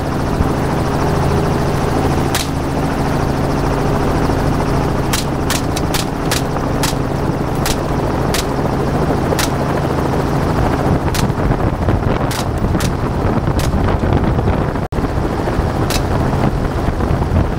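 Helicopter running steadily, with a dozen or more sharp rifle shots fired from it at hogs. Several shots come in quick succession about five to seven seconds in, and the rest are spaced out.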